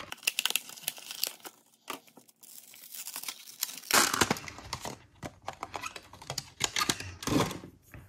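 SSD retail packaging being opened and handled: a clear plastic tray crinkling and clicking in the hands in irregular bursts, loudest about four seconds in and again near the end.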